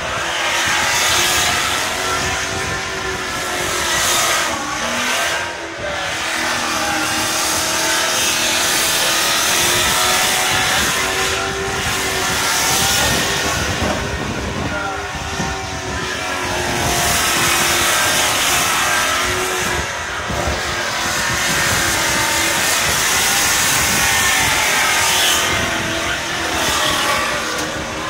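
Burnout car's engine held at high revs, its pitch rising and falling over and over as the throttle is worked, with the rear tyres spinning against the asphalt in a continuous burnout.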